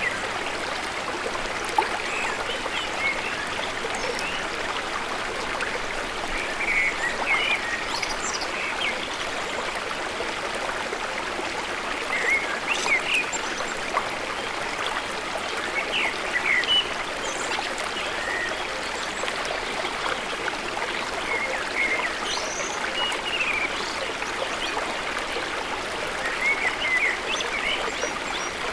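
Water of a stream or small waterfall flowing steadily, with many short, high chirps scattered over it.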